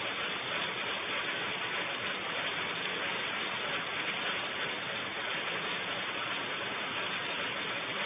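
Steady hiss of heavy rain, even and unchanging throughout.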